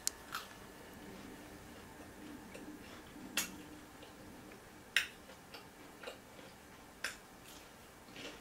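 Faint mouth sounds of someone chewing a soft fried dough ball (puff puff) with peanut butter: a handful of sharp lip-smacking clicks at irregular intervals, a second or two apart.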